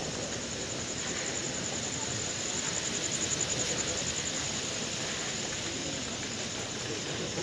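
Steady hubbub of a crowd gathered outdoors, many people talking at once with no single clear voice. Through the first half a fast, high-pitched pulsing trill runs in the background.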